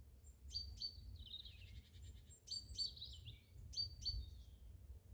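Great tits giving alarm calls: scolding bouts of buzzy rattles mixed with sharp high notes, coming three times. They are warning at a person they have spotted.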